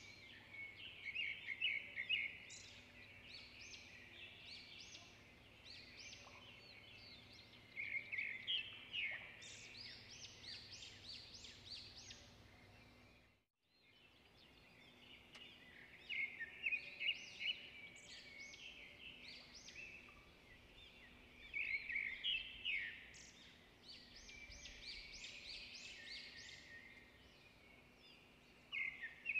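Small birds chirping in repeated clusters of quick, high notes, with a brief break in the sound about halfway through.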